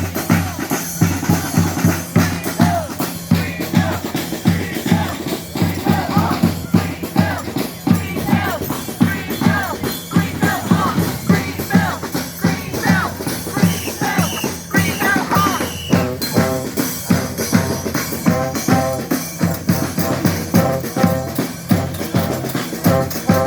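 Honk! street brass band playing: a steady, driving drum beat with bass and snare drums under horn melodies.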